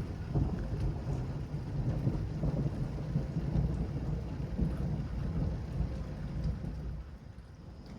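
Thunder rolling in a low, uneven rumble that dies down near the end.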